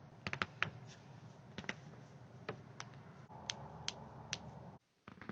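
Joints cracking during a chiropractic adjustment: about a dozen sharp pops, several in quick clusters, over a low background hum that cuts off abruptly near the end.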